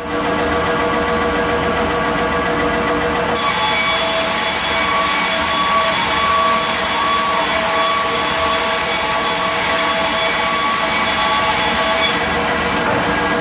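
Stenner ST100R resaw band saw running steadily with a board being ripped through its power feed, a mix of steady tones. A high hiss of the blade in the wood starts about three seconds in and stops suddenly about a second before the end, as the board leaves the cut.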